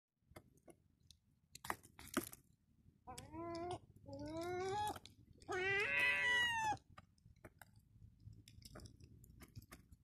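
Herring gull giving three drawn-out whining calls, each slightly rising, the third the longest and loudest; before and after them, light ticks and taps of a beak pecking rice off wooden decking.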